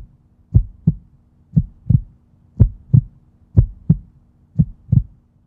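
Heartbeat sound effect: five double thumps, one pair about every second, over a faint steady low hum.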